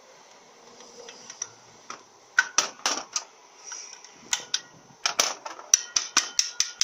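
Light, rapid tapping on an automatic transmission's valve body, working a stuck regulator-valve plug loose from its bore. A few scattered taps come first; from about five seconds in they turn steady at roughly four a second, each with a brief metallic ring.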